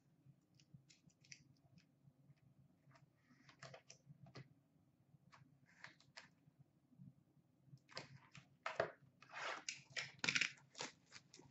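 A cardboard hockey-card box being opened by hand: faint scattered clicks and rustles at first, then louder crinkling and tearing from about eight seconds in.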